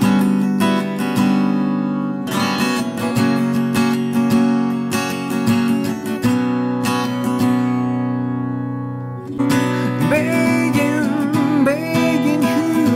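Acoustic guitar being strummed in chords, with one chord left to ring out and fade about two-thirds of the way through. Near the end a voice starts singing over the guitar.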